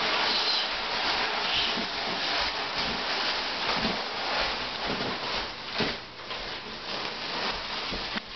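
Cardboard box being pushed along a hardwood floor, a continuous rough scraping that rises and falls as it slides, with a sharp knock about six seconds in.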